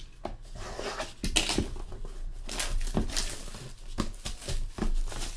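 Hands opening and handling a sealed trading-card box: irregular rustling and scraping of cardboard and wrapping, with scattered light taps and clicks.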